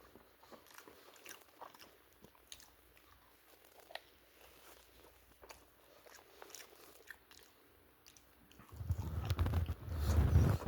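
Someone eating cold chicken wings: faint scattered clicks and smacks of chewing, then much louder chewing and handling noise from about nine seconds in.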